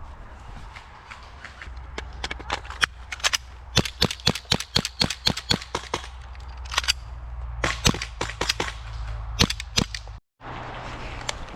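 Airsoft guns firing: a string of sharp cracks, single shots and quick bursts, thickest between about four and six seconds in. The sound cuts out for a moment near the end.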